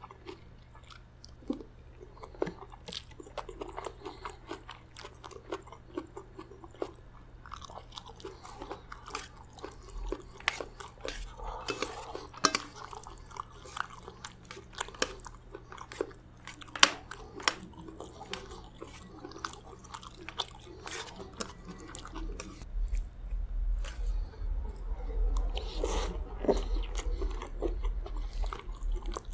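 Close-miked chewing of rice, chicken gizzard curry and raw shredded cabbage, with wet mouth sounds, crunches and many short sharp clicks, some from the metal spoon against the steel plate. A steady low hum runs underneath, and the chewing gets louder in the last few seconds.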